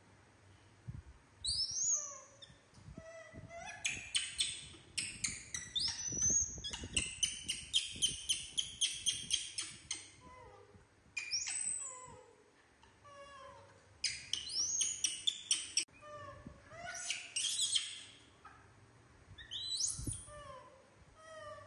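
Young macaque monkeys screaming: bouts of shrill, high-pitched cries that fall in pitch, one bout a rapid run of about three screams a second, with short pauses between bouts. They are angry, demanding to be fed.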